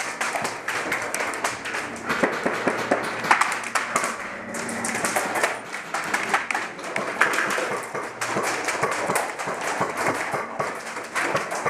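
Airsoft guns firing during a game: irregular sharp snaps of shots and BBs striking surfaces, some in quick strings, over a busy background haze.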